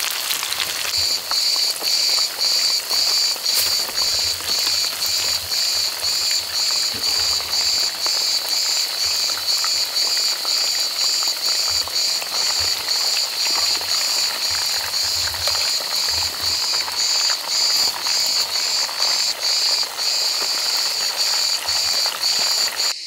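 A cicada singing, a loud high-pitched buzz pulsing about twice a second, starting about a second in. Under it is the steady sizzle of trout frying in a pan of oil.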